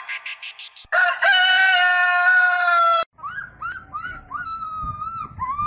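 Intro music fades out, then a rooster crows once, a long held call of about two seconds that cuts off suddenly. Chickens in a yard then give a run of short repeated calls.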